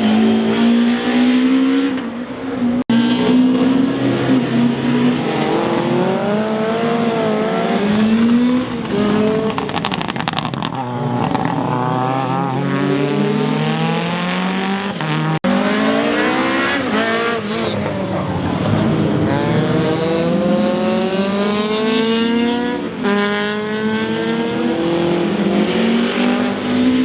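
Rally car engines revving hard through the gears, the pitch climbing and dropping again and again as the car accelerates, shifts and lifts for corners, with some tyre squeal. The sound breaks off abruptly for an instant twice, about 3 s and 15 s in.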